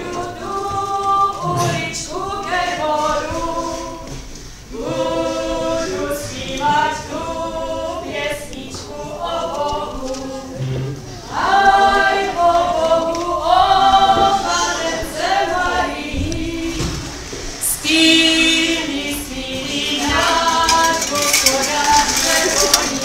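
A small choir singing a Czech Christmas carol (koleda) in sung phrases with held notes, with short breaks between the phrases.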